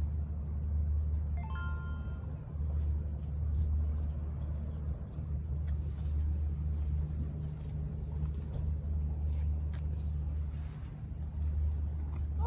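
Steady low rumble of street background noise, with one brief high-pitched call about a second and a half in.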